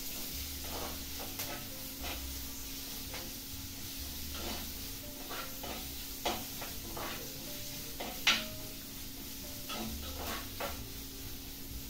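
Onions, tomato and curry leaves sizzling in hot oil in a clay pot, stirred with a spoon that scrapes and clicks against the clay at irregular moments, with one louder knock about eight seconds in.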